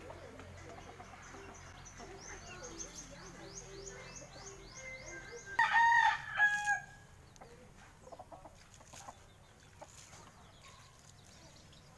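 A rooster crowing once, loudly and for about a second, midway through. Before it, hens cluck and a small bird gives a quick run of high chirps.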